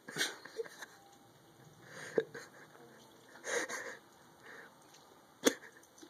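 Faint, wheezy breaths from a person, four short puffs a second or more apart.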